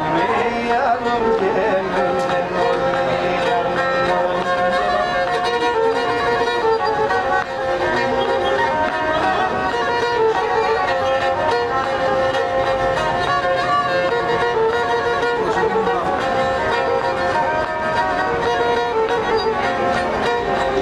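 A Pontic lyra (kemenche), the small pear-shaped bowed fiddle of Pontic Greek folk music, playing a continuous melody without a break.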